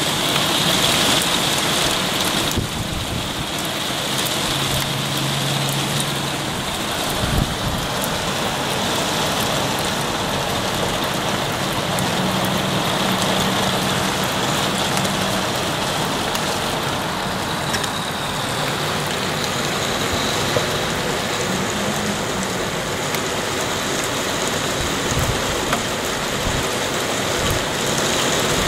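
Very heavy rain pouring steadily, a dense even hiss of rain on surfaces.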